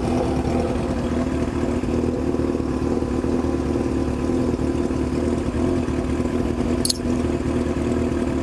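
Honda CB1000's inline-four engine running at a steady speed through a loud straight-through exhaust, holding an even note with no revving.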